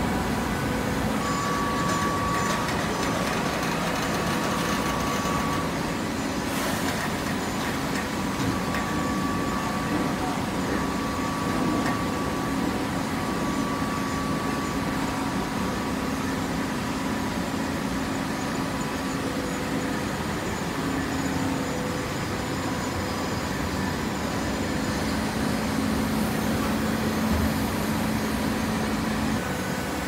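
Horizontal automatic hydraulic waste paper baler running: a steady machine hum with a few held tones.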